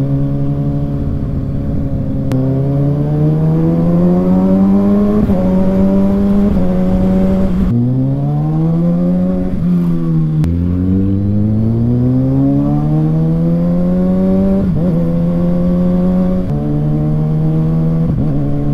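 Kawasaki Ninja ZX-6R's inline-four engine under way, its pitch climbing in several long pulls through the gears, with a sudden drop at each shift and a falling stretch where it eases off midway.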